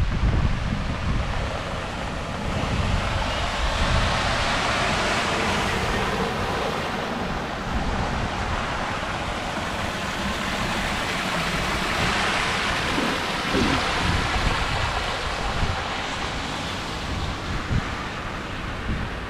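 Strong gusty wind buffeting the microphone, with a rushing noise that swells and eases in waves.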